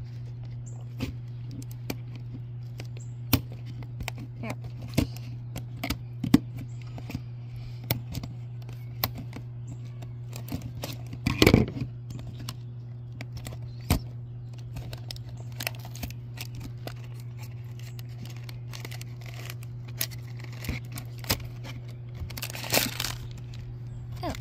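Cardboard mystery-toy canister being pried and torn open by hand: scattered clicks and scrapes, a loud tear about halfway through, and crinkling of the paper blind bag near the end. A steady low hum runs underneath.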